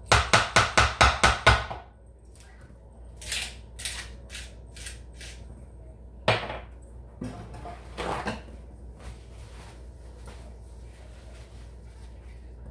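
Kitchen knocking: a loud, quick run of about eight sharp knocks in under two seconds, then a few scattered lighter clicks and clatters of utensils.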